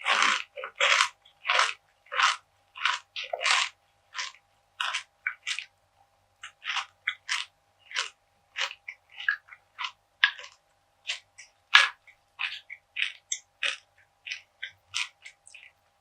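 Close-miked crunchy chewing of perilla seed gangjeong, a Korean perilla seed brittle: irregular crisp crunches, two or three a second, loudest in the first few seconds.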